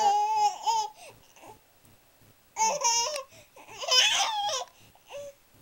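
Baby babbling in high, wavering squeals: three bursts with short pauses between, and a brief last sound near the end.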